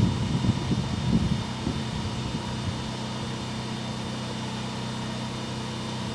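Electric drain-cleaning machine running steadily with a low hum, with a burst of irregular rattling knocks in the first second and a half that then settles to the steady hum.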